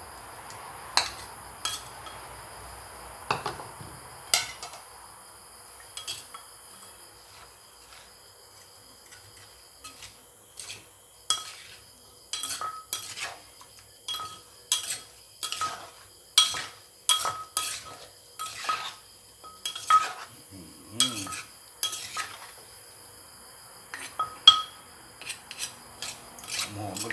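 Spoon clinking against a bowl as ingredients are scooped into a clay mortar. About a third of the way in, it gives way to a run of sharp knocks, about two a second, as a wooden pestle pounds in the clay mortar and a spoon turns the fruit salad.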